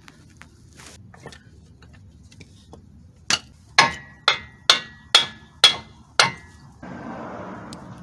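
Hammer blows on steel front-suspension or axle parts: seven sharp strikes about half a second apart, each leaving a short metallic ring. A brief scraping noise follows near the end.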